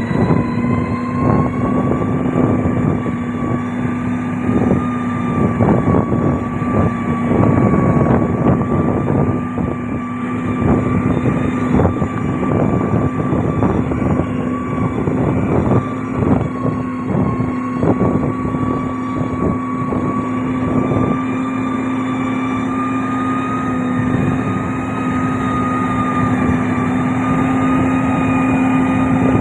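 Heavy diesel road-construction machinery running with a steady droning tone. Irregular clattering and knocking runs through much of it and dies down about two-thirds of the way through.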